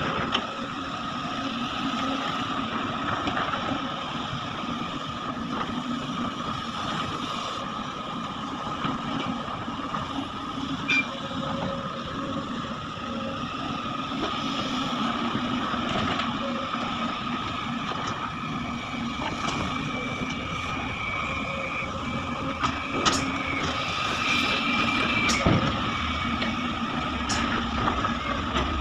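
Heavy diesel machinery running steadily, an excavator and dump truck working, with a constant high whine over the engine hum and a few sharp metallic knocks about halfway and again near the end.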